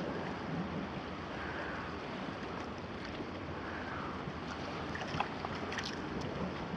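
Sea waves washing against the shore with wind on the microphone, swelling softly every second or two. A few faint clicks about five and six seconds in.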